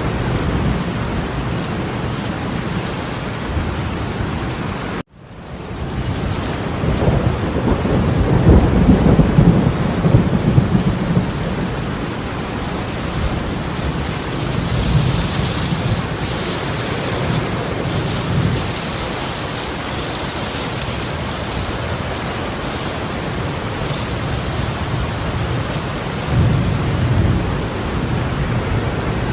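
Torrential rain pouring down steadily, with low rumbling swells rising and falling, loudest about seven to eleven seconds in. The sound cuts out briefly about five seconds in, then fades back up.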